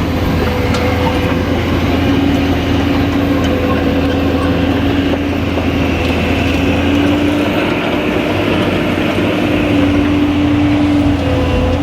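Excavator's diesel engine running steadily, with a constant low hum and a steady mid-pitched tone that rises slightly a couple of times as the load changes.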